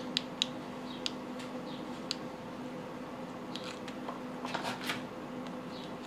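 Faint small clicks and light handling noises from a hot glue gun being squeezed against a plastic clip and then set aside, over a faint steady low hum.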